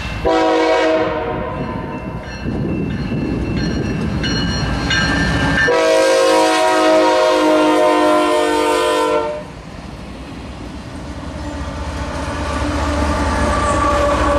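Air horn of a BNSF freight train's lead locomotive sounding two long blasts, the second longer, as the train approaches. Then the locomotives rumble past, followed by double-stack intermodal cars clattering over the rails.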